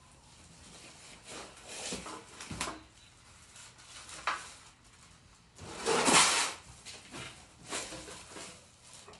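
Cardboard box and packaging being handled during unboxing: scattered rustling and short knocks, with a louder scraping rush about six seconds in.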